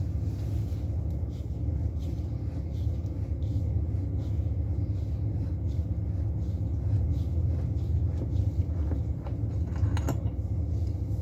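Steady low machinery hum, with faint clicks and taps of small connector parts being handled and a sharper click near the end.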